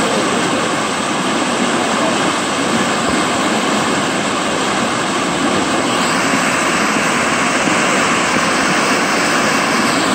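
Fast turbulent whitewater rushing past a concrete wall, a steady, unbroken rushing noise.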